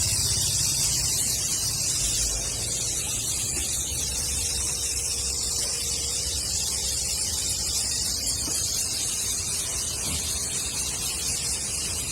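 SYM Duke scooter engine running steadily, a low rumble under a constant loud hiss. The owner says its sound is wrong and takes it for an engine fault.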